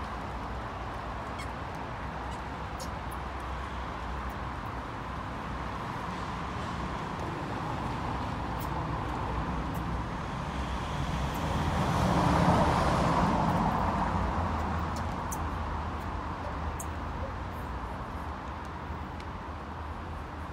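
Street traffic noise, with a vehicle passing close by about twelve seconds in, swelling and then fading over a few seconds.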